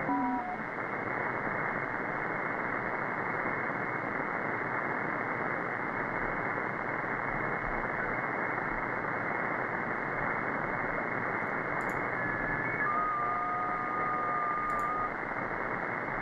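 Shortwave receiver audio from an SDRplay RSP1A running SDRuno, tuned across the 80-metre band: a steady hiss of band noise heard through the receiver's narrow audio filter. Brief steady tones from signals pass through as it tunes, at the very start and again about 13 to 15 seconds in.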